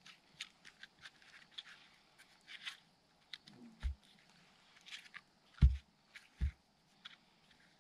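Splitting a small birch log with a knife: the log is stood upright on the forest floor and the blade worked into its top, giving three dull thuds, the loudest near the middle, among small clicks and rustles of bark and pine needles.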